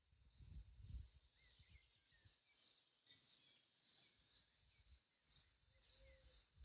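Faint chirping of small songbirds: many short, high chirps repeating throughout, with a few lower sliding notes and a brief low rumble about a second in.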